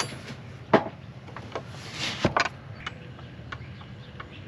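A few sharp knocks and clatters of things being handled, the loudest about a second in, with a short rustle and two more knocks around two seconds in.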